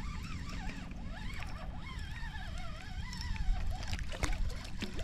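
Spinning reel being wound in while a small hooked sheepshead splashes at the water's surface near the end, over a steady low rumble of wind on the microphone.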